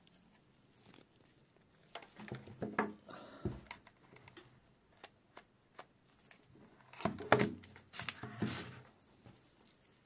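Handling noise: nitrile-gloved hands rustling and clicking against cables and plastic plugs, in two busy bursts. Between them come a few single sharp clicks from a digital multimeter's rotary selector switch being turned.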